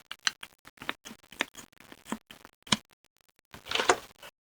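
Plastic clicks of a spring-loaded desoldering pump being handled and worked, with several sharp separate clicks and a short burst of noise near the end. The pump works only intermittently.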